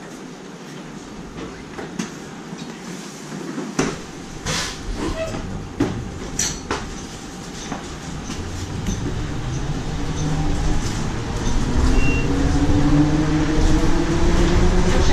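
Nova Bus LFSe battery-electric bus: scattered clicks and knocks in the first half, then from about halfway the whine of its TM4 LSM280 electric drive motor rises in pitch and the ride noise grows louder as the bus accelerates.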